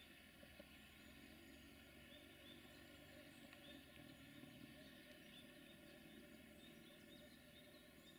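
Near silence: faint outdoor ambience with a few faint, short high chirps scattered through it.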